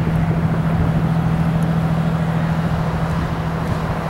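Diesel engine of an aerial ladder fire truck running with a steady low hum over a rumble.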